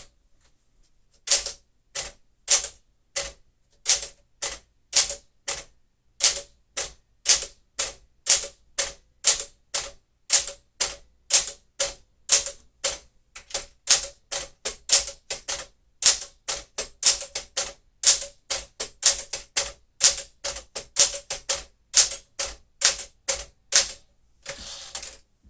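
1964 Smith-Corona Sterling manual typewriter being typed on: separate keystrokes of the type bars striking, about two to three a second with short irregular pauses. Near the end there is a short rasping noise.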